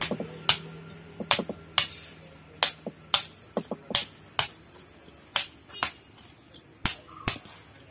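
Sharp, irregular strikes of a hand tool chipping into hard ground, about two a second, as a small pit is dug out to bed an anvil block.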